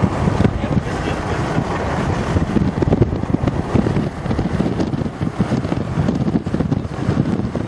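Car driving with steady road and wind noise and wind buffeting the microphone.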